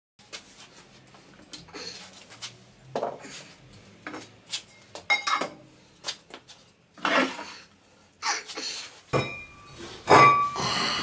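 Heavy steel parts, brake discs and a cast-iron cylinder head, clanking and clinking against a steel frame and workbench as they are lifted and set down. There is a series of separate knocks, some with a short metallic ring, and the loudest clank comes near the end.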